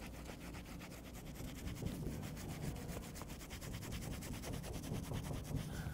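A microfiber applicator pad scrubbing the white leather of a motorcycle race suit: a faint, quick back-and-forth rubbing as leather cleaner is worked into black scuff marks.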